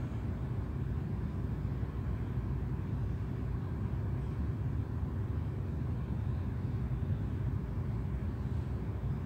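Steady low rumble of background room noise with a faint constant hum running through it; nothing else stands out.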